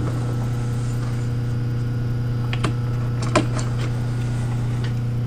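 A steady low electrical hum, with two or three light metallic clicks a little past halfway.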